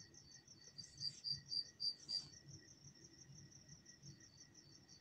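Faint insect chirping, probably a cricket: a fast, even pulse of about five high chirps a second, louder for a moment a second or two in.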